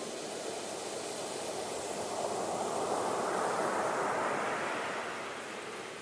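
Ocean surf breaking on a beach: the rush of the water swells to a peak about halfway through, then fades.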